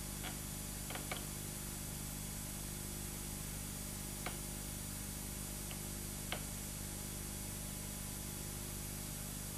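Steady hiss and low hum of an old recording, with no speech; a few faint clicks stand out, several in the first second or so and two more around the middle.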